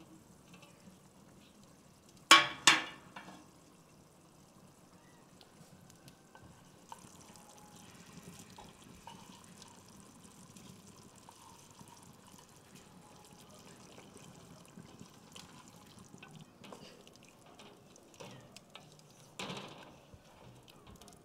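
Metal stew-pot lid clanking twice about two seconds in as it comes off the pot, then faint wet scraping as fried barberries are spooned from a small pan into the simmering stew with a wooden spoon, and a single knock near the end as the wooden spoon stirs against the pot.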